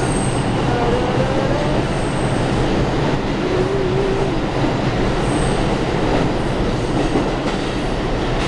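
New York City subway train running past the platform and pulling out of the station: a loud, steady noise of wheels on rail, with faint wheel squeals gliding in pitch during the first few seconds.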